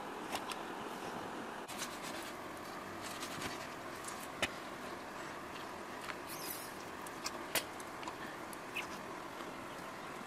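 Hands stuffing a whole fish with a seasoned paste on a woven bamboo tray: small clicks and handling noises over a steady background hiss, the two sharpest clicks near the middle and about three-quarters of the way through.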